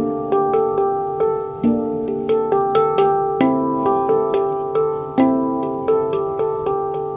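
Handpan, a tuned steel drum, played with the hands: a steady stream of struck notes, about three a second, each ringing on and overlapping the next in a flowing melody.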